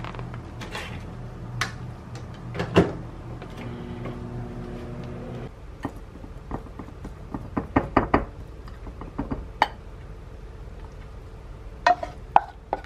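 Microwave oven running with a steady hum that cuts off suddenly about five seconds in. After that, a metal spoon clicks and scrapes on a ceramic plate as rice is pressed flat. Near the end, a wooden spoon knocks against a frying pan as curry is ladled out.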